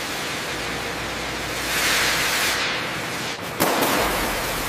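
Steady hiss, with a rush of noise that swells and fades about two seconds in, then a sudden sharp crack about three and a half seconds in, followed by more hiss.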